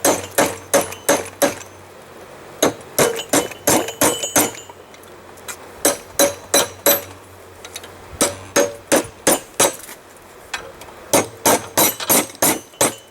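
Blacksmith's hand hammer striking hot railroad-spike steel on an anvil, about three blows a second in runs of four to seven with short pauses between runs, each blow ringing briefly. The blows are part of cutting away the ear material from the forged elephant head's tusk.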